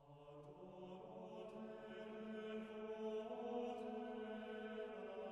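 Quiet, slow chant-like sacred music of long held notes that fades in over the first few seconds.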